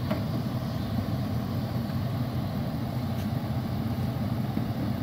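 Ford Super Duty pickup's engine idling with a steady, even low rumble.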